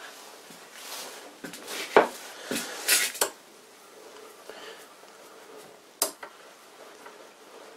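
Small metal clicks and clinks from a vintage bench lathe's tailstock as its quill is wound in and out with the small crank handle. There is a cluster of sharp clinks about two to three seconds in and one more sharp click about six seconds in.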